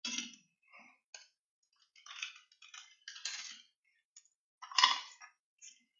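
Small tools being handled on a workbench: a series of light clatters and scrapes at uneven intervals, the loudest about five seconds in.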